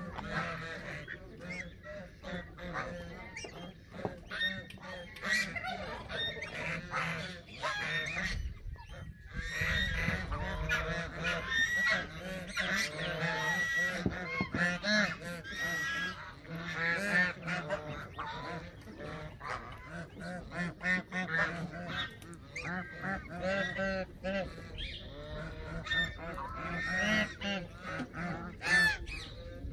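A flock of geese honking, many short calls repeating and overlapping, with ducks among them. A low steady hum runs underneath.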